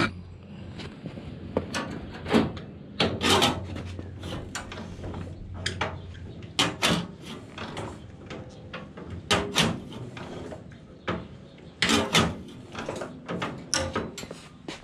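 Ford Model T four-cylinder engine being turned over by hand with the front crank, ignition off and choke pulled to prime it: irregular clunks and scrapes of the crank and engine turning over, without firing.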